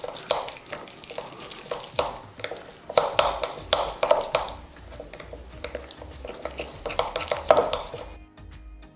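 A metal utensil stirring a thick, grainy marinade paste of spices, mustard seeds, honey and soy sauce in a glass bowl, with irregular scraping and clinking against the glass. It stops about eight seconds in.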